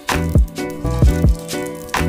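Background instrumental music with a steady beat of deep kick drums under sustained chords.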